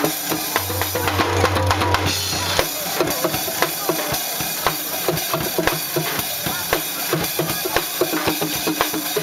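Drums beating a quick, steady rhythm with music.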